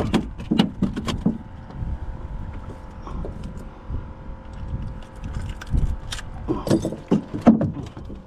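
Clicks, knocks and light rattles of a landed trout and tackle being handled on a plastic kayak, thickest about the first second and again near the end, over a faint steady hum.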